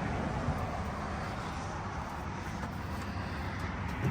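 Steady rumble of highway traffic going past.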